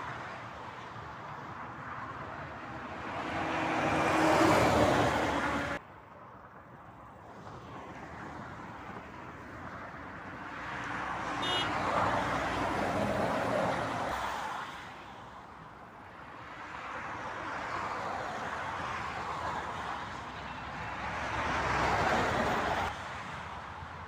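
Motorway traffic passing close by: vehicles swell and fade one after another, with a semi-trailer lorry's engine and tyres passing in the middle. The sound drops off abruptly about six seconds in and again near the end.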